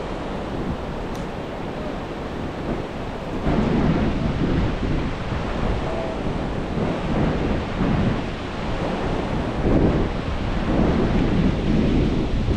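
Rain falling at a beach with surf behind it and wind buffeting the microphone, a dense steady hiss under gusty low rumbling. The rumble gets louder about three and a half seconds in.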